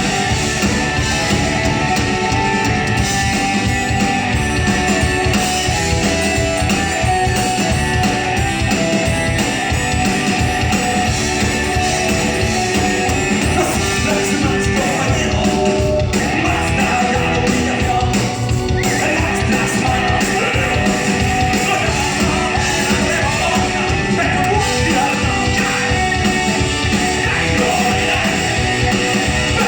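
Live rock band playing a song, with electric guitars, drums and singing.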